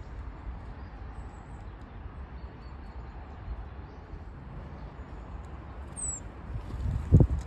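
Steady low rumble of city background, with a short high falling call from a tit about six seconds in and a single dull thump near the end, the loudest sound, as small birds come and go at the hand.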